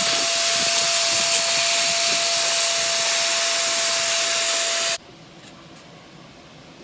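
Vacuum cleaner running with a steady whine and rushing hiss, sucking standing water and debris out of the drain pan of an RV rooftop air conditioner whose clogged drain holes made it leak inside; it cuts off suddenly about five seconds in.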